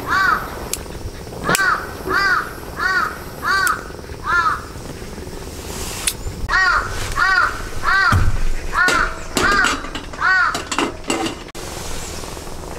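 A bird calling in two runs of about six evenly spaced calls, roughly one every 0.7 seconds, with a short pause between the runs. A few sharp clicks and knocks come in between, mostly in the second half.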